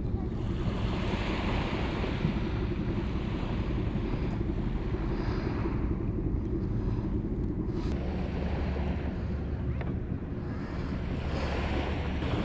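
Sea waves washing in, swelling and easing a few times, with wind rumbling on the microphone.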